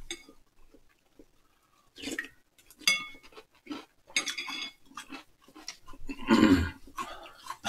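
Metal spoons clinking against glass cereal bowls as cereal and milk are scooped, a few short ringing clinks, with chewing and mouth sounds in between.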